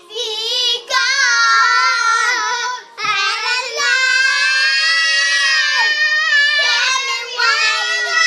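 A young girl singing loudly in long, wavering high notes, with short breaks about one and three seconds in.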